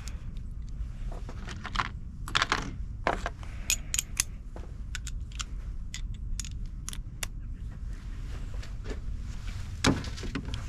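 Metal hand tools and sockets clinking and clattering: a scattered series of sharp clicks with a few short clattering runs, as tools are rummaged through in search of a 12 mm socket.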